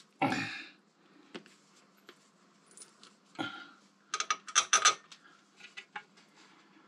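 Light metallic clinks and taps of a bolt and small hardware being fitted to a motorcycle's front fender, with a quick run of bright clinks about four seconds in.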